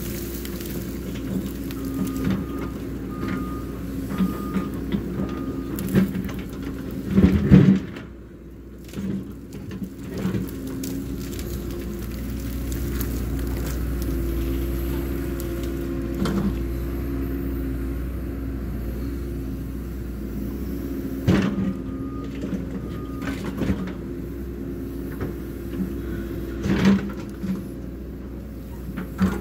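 Cat 314 hydraulic excavator's diesel engine running steadily under load as the bucket pushes and lifts brush and small trees. Branches snap and crash against the bucket, loudest about seven seconds in, with more cracks near the end.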